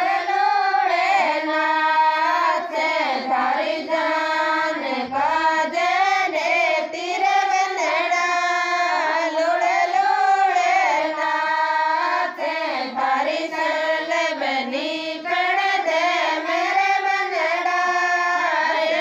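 A woman singing a Rajasthani banna geet or ghodi geet, a folk wedding song, solo and unaccompanied in a high voice with gliding, ornamented melody lines.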